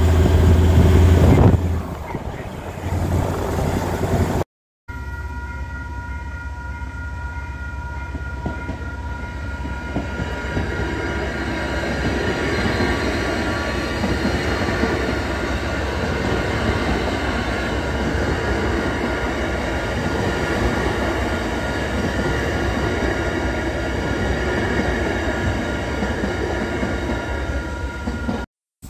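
Electric commuter train, a Matangi multiple unit, running through a level crossing with a steady rumble, while the crossing's warning bells ring without pause. It opens with a few seconds of wind and road noise from a moving car driving alongside a train.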